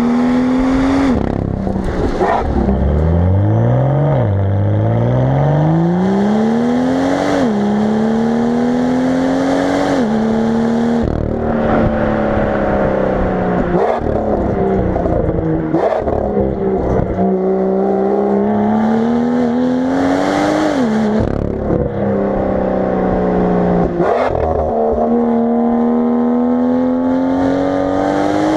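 BMW M2's turbocharged straight-six heard at the tailpipes through a Dinan free-flow exhaust with the resonator deleted. The engine pulls hard through the gears over and over, its note climbing steadily and then dropping sharply at each upshift.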